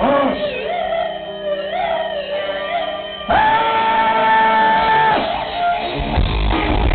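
Live rock band playing, with electric guitar and singing. About three seconds in, a loud held note comes in and lasts about two seconds; after it the sound turns noisier, with a low rumble.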